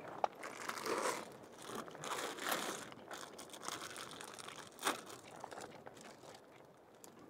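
Plastic bag crinkling and rustling as it is handled, in irregular bursts that are loudest about a second in, around two and a half seconds in and in one sharp crinkle near five seconds, then fading out.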